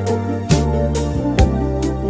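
Recorded band music: sustained bass notes with a sharp drum hit about every half second.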